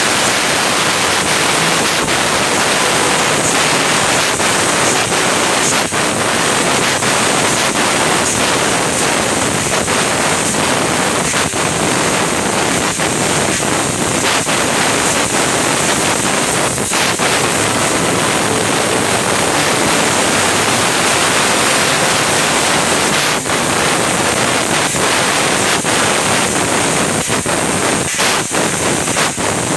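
CNC laser cutting machine cutting steel sheet: a loud, steady hiss of the cutting jet at the nozzle, with brief dips now and then.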